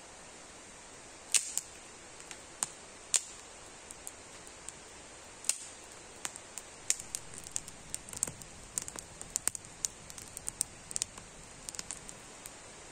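Small campfire of dry sticks crackling, with sharp, irregular pops that come more often in the second half, over a steady faint hiss.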